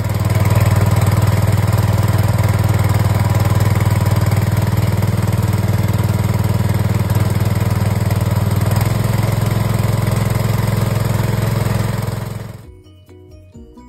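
Motorized pesticide sprayer pump running steadily and loud, with a low hum, while its spray gun jets the mix back into the tank and churns it to stir it before spraying. It fades out near the end.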